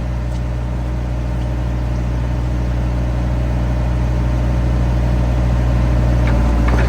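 Diesel engine of a 2002 Bobcat compact excavator running steadily while the machine is moved, growing gradually louder.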